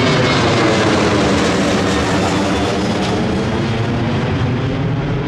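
Jet engines of a departing Boeing 747-8 BBJ, a four-engine airliner, heard as it passes: a loud, dense jet noise whose tone sweeps and slowly fades.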